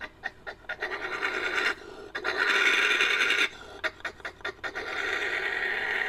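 Badger sound effect built from recorded badger calls: quick huffs, about five puffs a second, alternating with three long hissing growls, the middle one the loudest.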